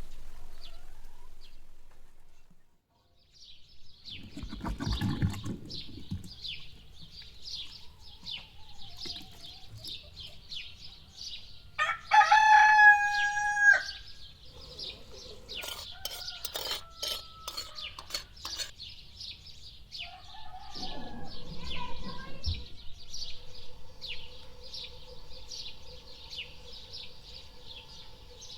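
A rooster crows once, loudly, about twelve seconds in, over steady high-pitched chirping that continues throughout.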